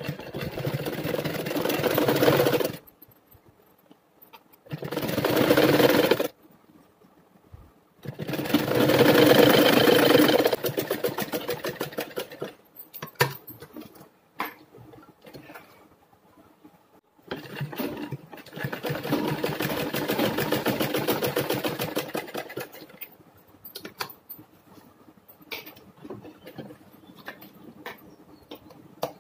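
Sewing machine stitching a seam in four runs of a few seconds each, the longest about five seconds, with a fast, even stitch rhythm and pauses between; small clicks in the pauses as the fabric is handled.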